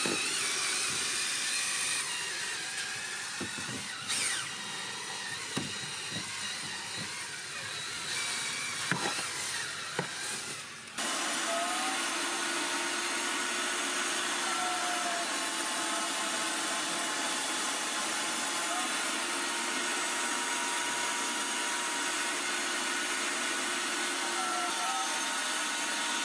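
A cordless drill spinning a brush that scrubs car carpet, with a few knocks. About eleven seconds in, this gives way abruptly to the steady rush of a carpet extractor's vacuum wand sucking water and dirt out of the carpet.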